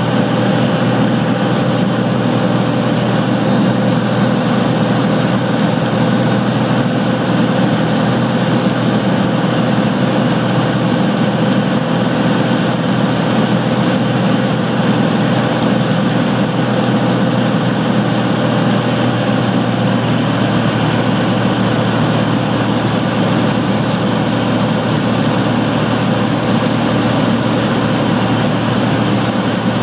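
Steady drone of a light airplane's engine and propeller heard inside the cabin, holding an even note without changes in power.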